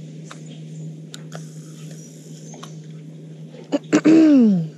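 A steady low hum with a few faint clicks, then near the end a loud, short vocal cry that falls in pitch.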